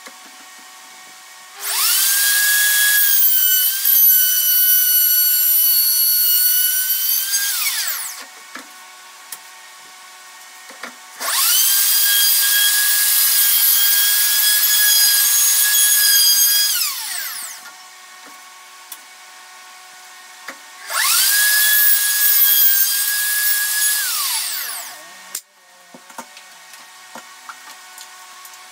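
Handheld electric router cutting a groove along a wooden guitar neck blank, run three times: each time it spins up to a steady high whine, cuts for a few seconds and winds down, with small knocks in the pauses between.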